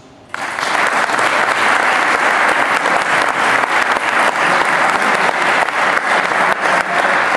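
Audience applauding, the clapping breaking out suddenly just after the start and going on steadily.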